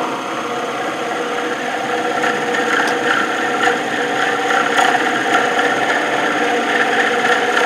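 A texturing tool's toothed wheel pressed against the end grain of a wood blank spinning on a lathe, cutting swirls: a steady buzzing cut with a few steady tones running through it.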